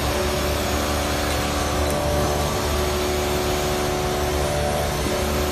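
Steady drone of running machinery: a constant noise with several steady tones and a low hum, unchanging in level.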